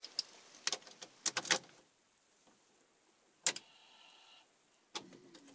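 Clicks and light rattles of a VW Lupo's key and cabin controls as the ignition is switched on before starting. A sharp click about three and a half seconds in is followed by a short steady electronic whine, and after another click near the end a steady low hum sets in, before the engine has turned over.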